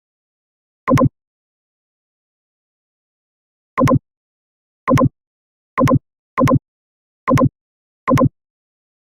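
Short electronic sound bursts, each about a quarter of a second and pitched, seven times at irregular intervals with dead silence between them.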